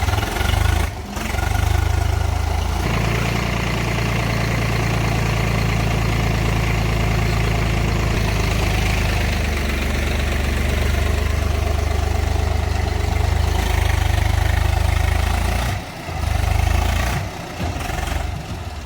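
Heavy diesel engine running steadily, working harder from about three seconds in, with a brief break shortly before the end.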